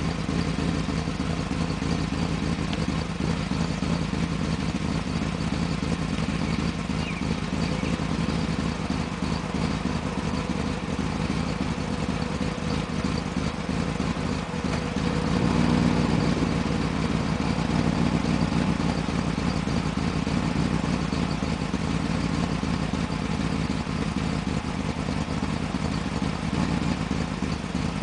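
1995 BMW 530i's V8 idling rough through a Magnaflow exhaust, the roughness caused by a vacuum leak after a top-end rebuild; it swells briefly about halfway through.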